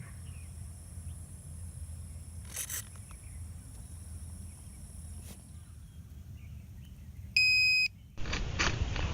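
A loud electronic beep lasting about half a second near the end, over a low background rumble with a few soft clicks.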